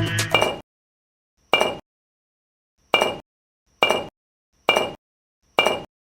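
Background music cuts off under a second in. It is followed by five short, identical clinking hits about a second apart.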